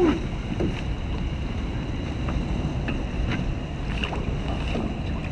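Steady wind rumbling on the microphone aboard a small boat, with a few faint clicks scattered through it.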